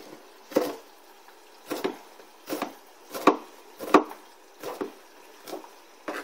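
Chef's knife chopping Italian parsley on a plastic cutting board: about eight separate, unhurried knife strokes knocking against the board.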